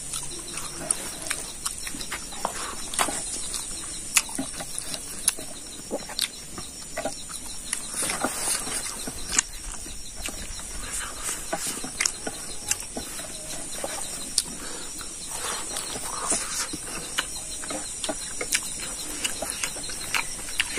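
Close-up eating sounds: a man chewing pig trotter and rice by hand, with irregular lip smacks and wet mouth clicks, over a steady high-pitched background drone.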